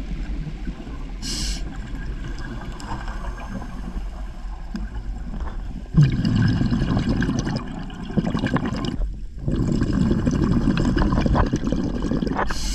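Scuba breathing heard underwater: a brief hiss of an inhalation through the regulator about a second in and again at the end, and two long gurgling rushes of exhaled bubbles in the second half.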